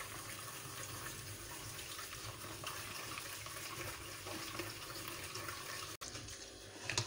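Silicone spatula stirring instant coffee and sugar into a little hot water in a plastic bowl: a faint, even swishing as the coffee dissolves.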